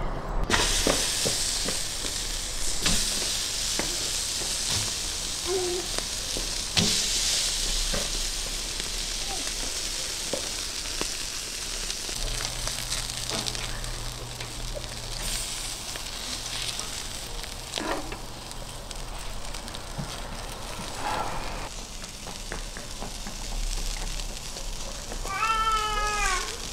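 Meat sizzling steadily on a hot round grill grate over a fire, with scattered clicks of metal tongs against the grate. Near the end comes a short high-pitched call of several quick falling notes.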